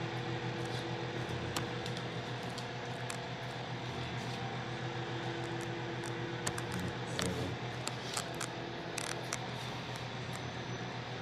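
Microwave oven running: a steady hum with fan noise, and a few light clicks scattered through it.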